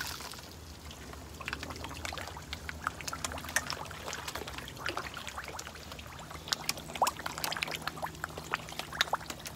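Water trickling and splashing into an indoor tank of baby koi, with many small irregular drips and plinks over a steady low hum.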